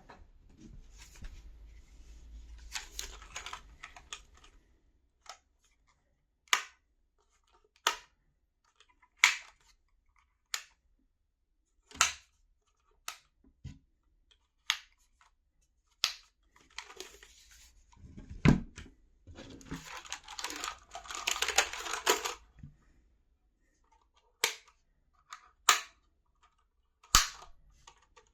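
Handling sounds: separate sharp clicks and knocks, one every second or two, with two spells of rustling, one at the start and a longer one in the middle, and a heavier thump a little before that middle spell ends.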